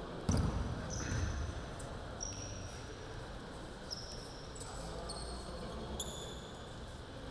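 A basketball bouncing on a hardwood gym floor, the loudest bounce just after the start and another about a second in. Basketball shoes squeak briefly on the court several times.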